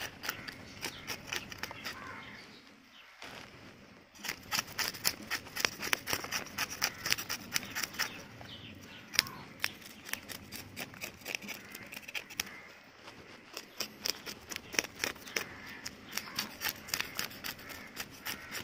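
Knife scraping the scales off a freshly caught fish: a fast run of short rasping strokes, about four to six a second, pausing briefly about three seconds in. On a fish this fresh the scales cling tight, so each stroke takes force.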